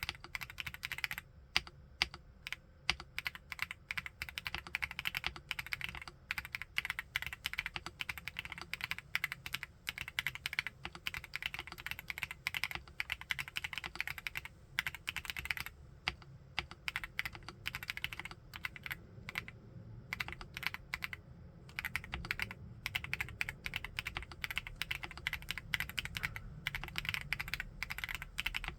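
Typing on a WEIKAV RO75 full-aluminium 75% mechanical keyboard (Caramel, QSENN Mint version): a fast, continuous run of keystrokes with a few short pauses.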